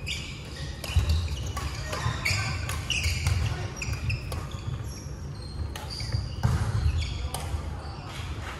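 Badminton doubles rally in a large hall. Sharp racket hits on the shuttlecock and short squeaks of shoes on the wooden court floor come again and again over a steady low rumble.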